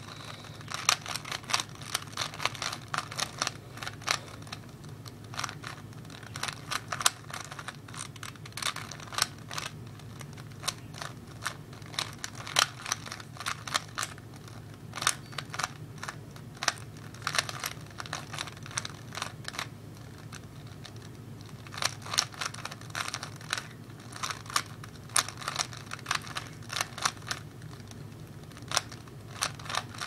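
Plastic clicking and clacking of a 3x3 Rubik's Cube's layers being turned quickly by hand, in irregular flurries of turns with a few brief pauses. A steady low hum runs underneath.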